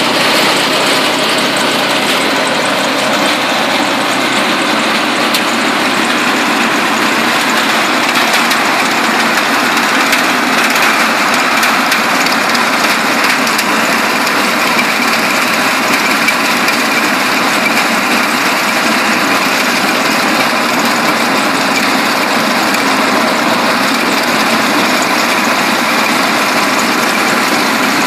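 Small garden branch chipper running continuously with a loud, steady mechanical noise.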